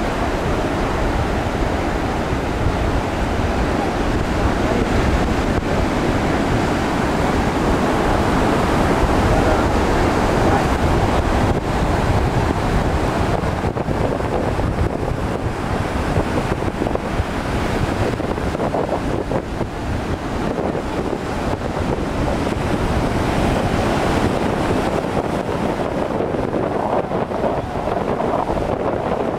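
Ocean surf washing in a steady noise, with wind buffeting the microphone.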